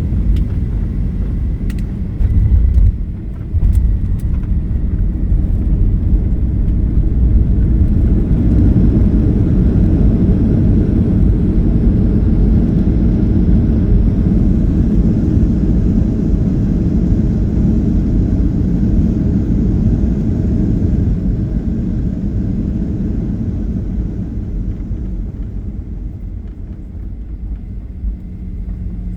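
Airliner cabin noise during landing: a couple of jolts about three seconds in, then a loud steady roar that eases off near the end as the plane slows.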